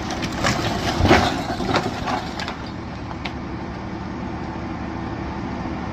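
An engine idling steadily, with several sharp cracks and snaps in the first few seconds.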